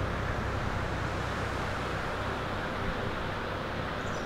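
Steady outdoor rumble of wind and road traffic with a low hum underneath.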